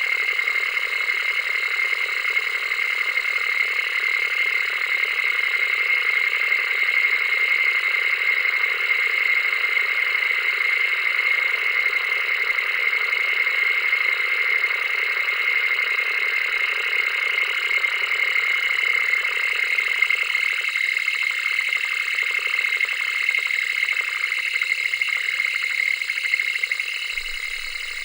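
Analog television static: a steady, even hiss with almost no low end, dropping slightly in level near the end.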